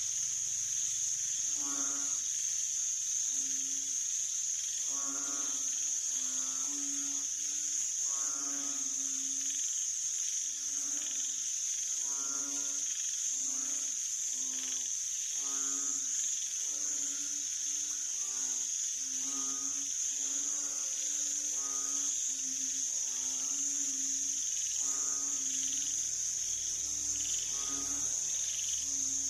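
Several banded bullfrogs (Asian painted frogs) calling, low calls with many overtones repeated about once a second, some overlapping. A steady high insect trill runs under them throughout.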